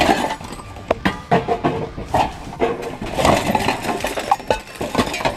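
Rummaging through junk in a dumpster: irregular clanks, knocks and clinks of objects being shifted and dropped, among rustling of bags and cardboard.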